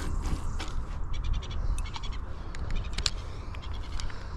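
Spod rod being cast out: a quick run of light ticks as the line pays off the fixed-spool reel, over steady wind buffeting the microphone.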